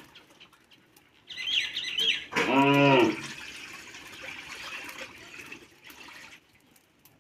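A farm animal lows once about two and a half seconds in, the loudest sound, just after a couple of bird chirps. Then comes a steady hiss lasting about three seconds as liquid is poured from a steel mug into a hot wok on a wood fire.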